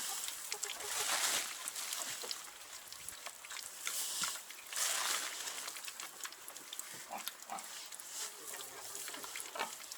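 Pigs grunting, with several bursts of rustling.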